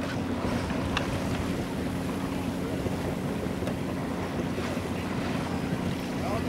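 Wind buffeting the microphone over water washing along the hull of a sailing boat under way, with a steady low hum underneath.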